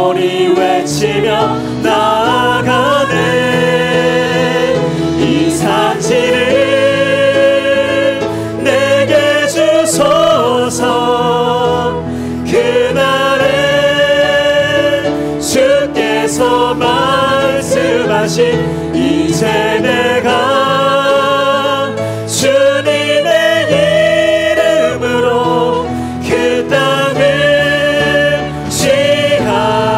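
Praise team of one male and three female singers singing a Korean worship song together into microphones, with instrumental accompaniment and light percussion underneath.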